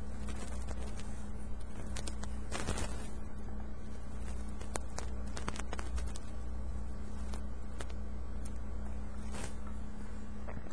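Small clicks and brief scraping handling noises as fingers try to snap tiny antenna connectors onto a laptop's mini-PCIe wireless card, the connector not seating easily. A steady low hum runs underneath.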